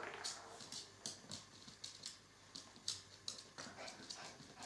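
A puppy's claws ticking and tapping on a wooden floor as it moves about. The light ticks come irregularly, several a second.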